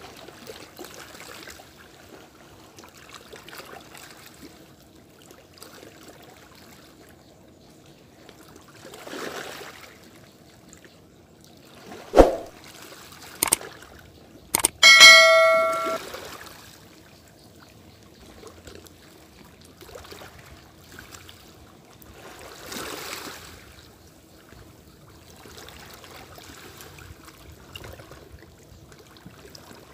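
Fishing gear handled on a rocky seashore: a sharp knock, two clicks, then a bright metallic ring, bell-like, that dies away over about a second. Small waves wash against the rocks in the background, swelling twice.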